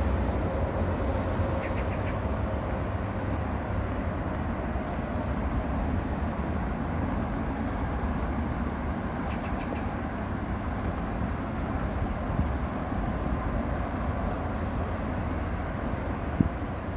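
Steady low rumble of distant road traffic, with a few faint ticks near the start and about halfway through.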